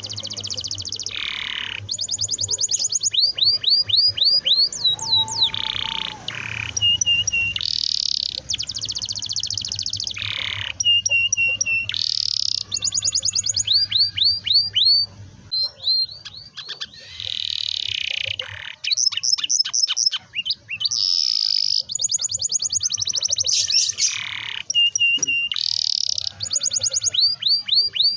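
Domestic canary singing a long, continuous song: fast trills of rapidly repeated down-sweeping notes alternating with buzzy rolls, high-pitched and with hardly a break.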